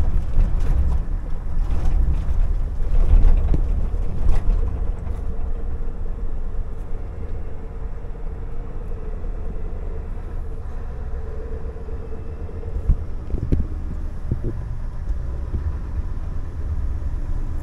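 Scania R520 truck's V8 diesel engine running with a steady deep rumble of engine and road, heard inside the cab while driving. A few knocks and rattles come in the first few seconds and again briefly near the end.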